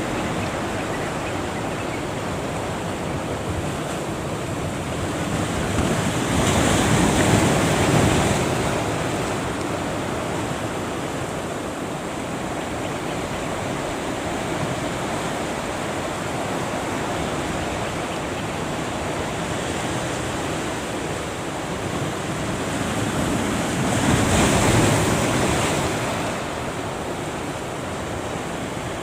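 Ocean surf breaking at a river mouth: a steady rush of waves, with two louder breaking waves, one about seven seconds in and one near twenty-five seconds, and wind buffeting the microphone.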